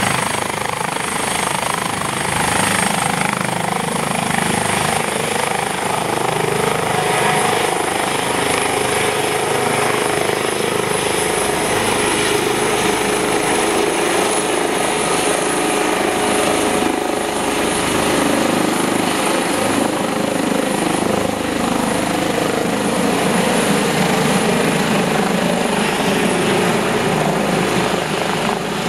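Airbus H145 (EC145 T2) rescue helicopter taking off and climbing away: loud, steady main-rotor and twin-turbine noise with a thin high whine from its turbines and Fenestron tail rotor.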